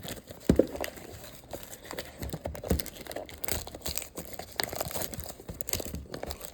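Crinkling and rustling of packaging as a trading-card mega box is opened, with irregular small crackles and clicks and a sharper snap about half a second in.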